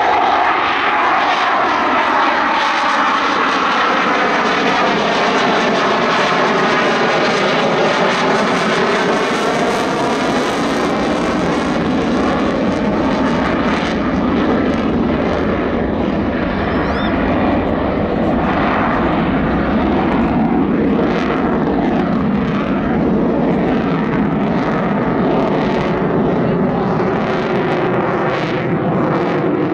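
Jet noise from a Dassault Rafale's twin Snecma M88 turbofans with the afterburners lit as the fighter manoeuvres overhead. The sound is loud and continuous, with a slow sweeping change in tone over the first ten seconds or so.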